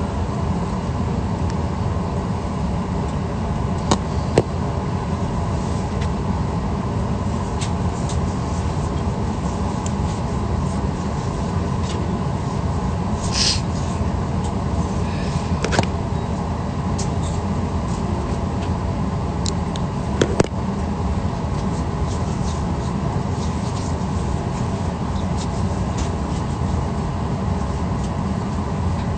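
Steady drone of an airliner cabin, a constant hum of the aircraft's air and engine systems. A few short clicks sound twice, and a brief hiss comes about halfway.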